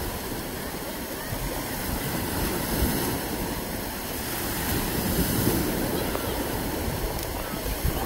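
Shallow surf washing up over wet sand and draining back: a steady rushing hiss of water that swells a little about five seconds in.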